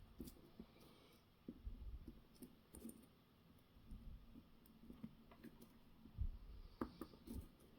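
Faint scattered clicks and a few soft knocks of small parts being handled.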